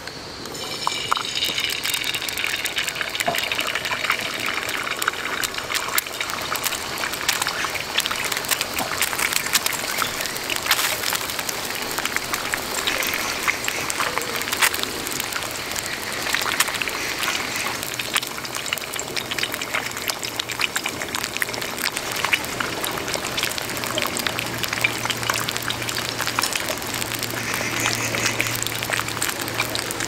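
Egg frying in oil on a hot griddle pan: a steady sizzle full of crackling spatters, starting about a second in as the egg hits the pan.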